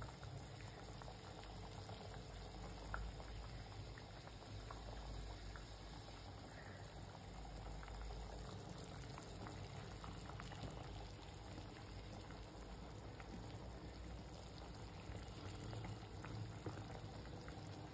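Mutton head curry boiling uncovered in a large pot on a medium flame: a faint, steady bubbling with occasional small pops as the broth reduces.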